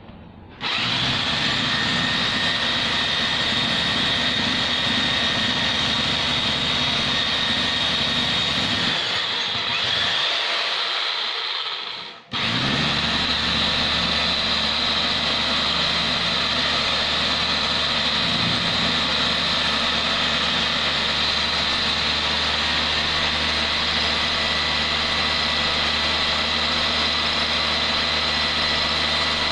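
Electric concrete drill (rotary hammer) switched on and running with a steady whine. It slows and drops out briefly a little before halfway, then is switched on again and runs steadily.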